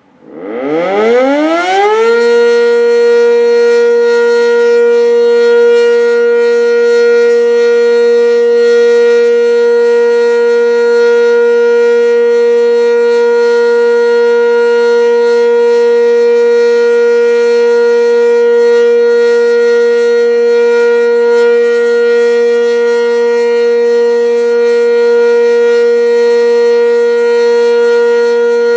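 Sentry 10V electromechanical outdoor warning siren starting up, its pitch rising steeply over the first two seconds, then holding one loud, steady tone. It is sounding for a statewide tornado drill test.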